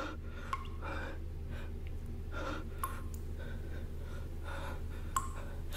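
A woman breathing quickly in fright, about one breath a second, over a steady low hum, with a few faint clicks.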